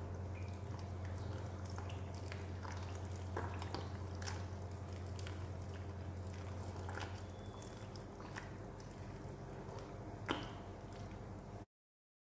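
Wire whisk stirring wet chocolate cake batter and milk in a glass bowl: soft wet squishing with scattered light clicks of the whisk against the glass, the sharpest about ten seconds in. A steady low hum runs underneath until about seven and a half seconds in, and the sound cuts off suddenly just before the end.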